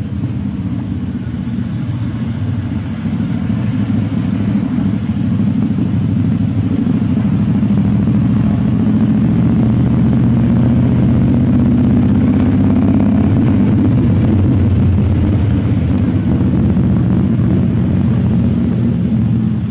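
An engine running steadily with a low hum, getting louder over the first several seconds and then holding level.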